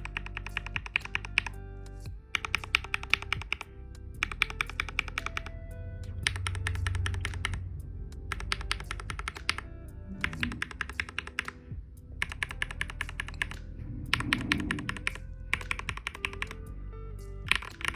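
Typing on a TM680 mechanical keyboard fitted with freshly lubed Gateron Milky Black linear switches: rapid keystrokes in bursts of about a second, with short pauses between. The lube has removed the scratchy sound of plastic rubbing, leaving a cleaner, slightly deeper sound.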